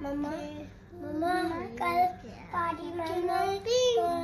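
A young child singing a song unaccompanied, in short phrases of held notes that slide up and down in pitch.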